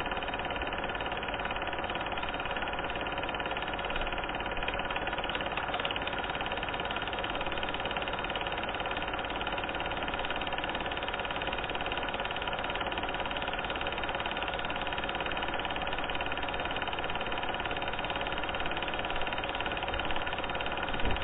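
A steady mechanical drone made of many fixed tones, running evenly with no rise or fall, with a few faint knocks near the end.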